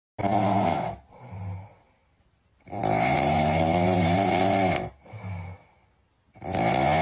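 Loud snoring: three long snores, the middle one longest, each followed by a shorter, softer breath.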